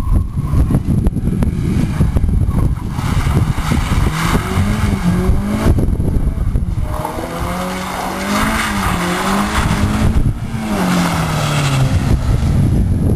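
Honda Civic Si rally car driven hard: the engine revs rise and fall several times as it works through the gears, over constant heavy tyre and road rumble with some tyre scrabble.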